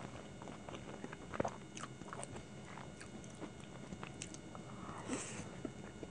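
Close-miked chewing with small wet mouth clicks, then a bite into a fried chicken dumpling about five seconds in.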